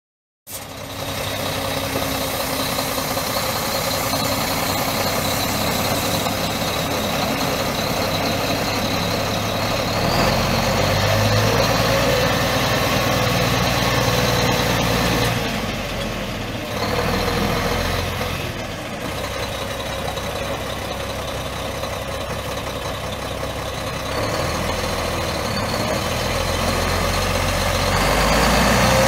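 Diesel engine idling steadily. Its low hum shifts about ten seconds in, and it briefly drops in loudness midway.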